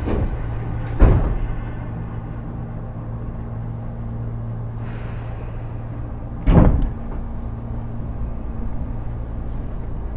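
Inside a standing Tobu 10030 series electric train car: a steady hum from the car's equipment, with two heavy thumps of the sliding passenger doors, about one second in and again about six and a half seconds in. A hiss of air fades out at the very start.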